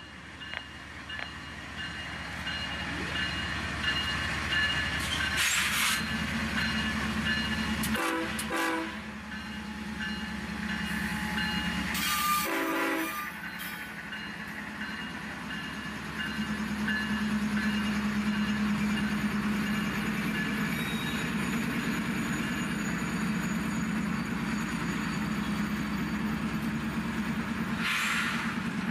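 Model railroad freight cars rolling past on the track: a steady rumble and hum of the wheels running over the rails, with several brief, louder sounds in the first half.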